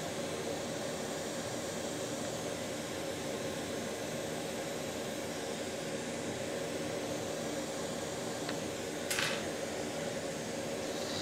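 Steady fan whir with a low hum from electronics-repair bench equipment. A short hiss sounds about nine seconds in, just after a faint click.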